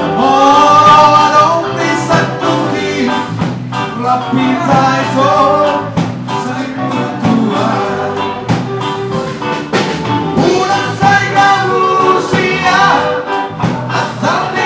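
A live rock band playing: electric guitars and a drum kit, with a singer's voice over them.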